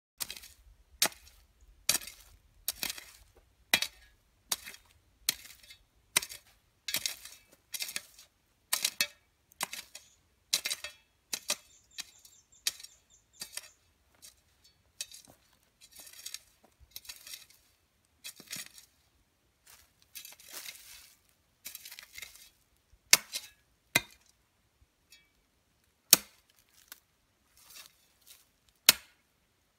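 Metal hoe blade chopping into stony forest soil, about one strike a second, with scraping of earth and leaf litter between strokes. The strikes grow irregular in the second half, and a few sharp clinks ring out near the end as the blade hits stones.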